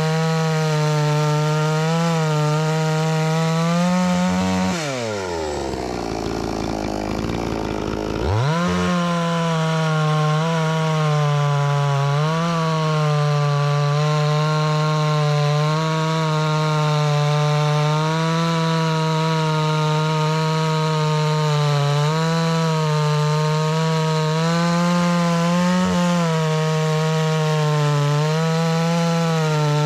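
Chainsaw running at high revs while cutting a log lengthwise along the grain, its pitch wavering as the chain loads and unloads in the wood. About four seconds in, the engine speed drops right down to a low, slow running for a few seconds, then revs back up and carries on cutting.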